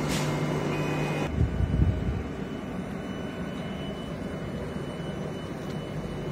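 EN57AKM electric multiple unit standing at a platform: a steady hum of its running equipment cuts off abruptly about a second in. A brief low rumble follows, then even steady noise.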